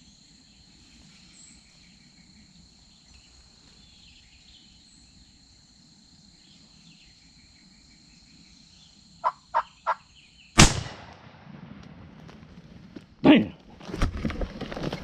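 Three quick short calls from a wild turkey, then a single loud shotgun blast that rings away. A second loud thump follows, and then rough thrashing and crackling, like wings and feet in dry leaves. Faint steady insect buzz is heard before the shot.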